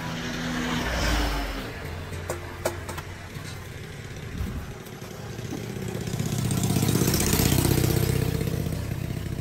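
Passing road traffic. One vehicle's engine fades away in the first second or two, and a few sharp clicks follow. Another engine then builds from about halfway and is loudest near the end.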